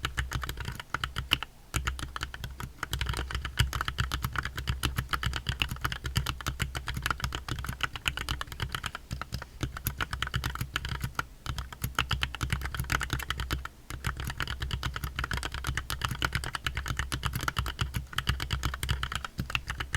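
Continuous fast typing on a Drop + Tokyo60 mechanical keyboard with Gateron Milky Yellow linear switches, dense key clacks with a few short pauses.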